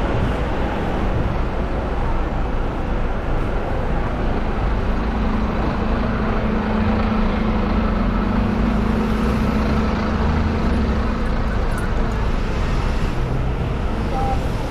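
Busy street traffic: cars and double-decker buses running past, a steady low rumble. A steady hum joins it from about a third of the way in and stops a little after the middle.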